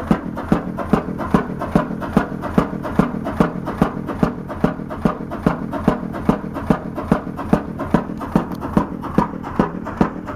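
Large 100-horsepower horizontal stationary engine with twin spoked flywheels, running steadily with an even beat of sharp strokes, about two strong ones a second with lighter ticks between.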